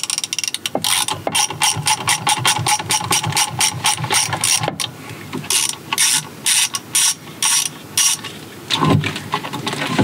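Hand ratchet wrench clicking as a fastener is worked loose: a run of quick, even clicks, then slower, longer strokes about three a second.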